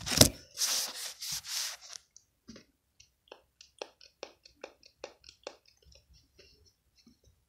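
Liquid hand wash being squeezed out for homemade slime: three hissy, spluttering squirts, then a run of small soft clicks and squelches, about two or three a second, that fade away.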